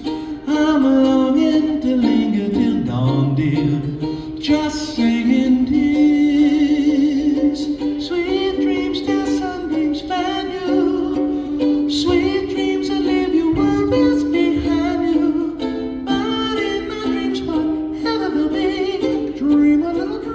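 Live music: a strummed ukulele with a wavering melody line over it, without clearly sung words.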